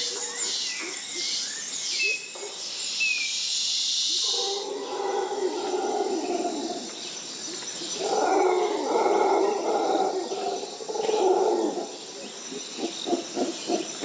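Tropical rainforest ambience. A high chirping insect and bird chorus gives way to two long bouts of loud, low roaring calls, typical of howler monkeys. Near the end comes a fast series of short calls at about four a second, over a steady high insect whine.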